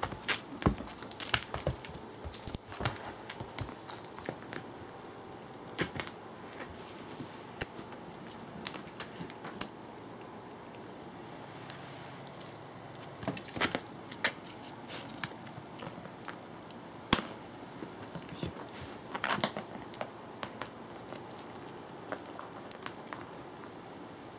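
Cats playing with a string toy on tatami mats: irregular rustles, scuffs and taps of paws and bodies, with short high jingles scattered throughout.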